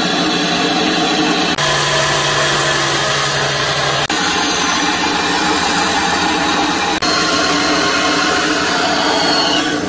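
Bandsaw running and cutting through wooden blocks, with a belt sander sanding a wooden block for a couple of seconds in between. The steady machine noise changes abruptly a few times as one machine gives way to the other.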